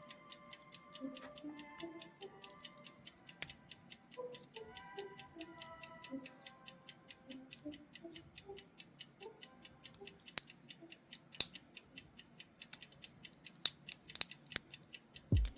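Soft background music with a rapid, even ticking beat, and a few louder clicks in the second half.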